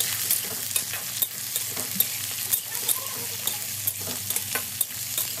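Sliced onions with garlic cloves and whole spices sizzling in hot oil in a kadhai, stirred with a spatula that scrapes and clicks against the pan again and again. The onions are freshly added and just starting to fry.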